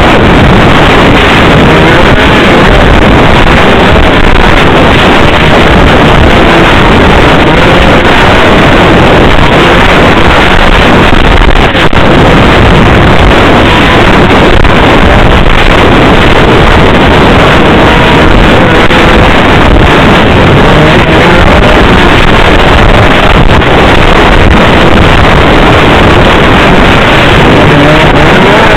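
Snowmobile engine running as the machine moves along a trail, buried in heavy wind buffeting on the microphone; very loud and distorted, with no breaks.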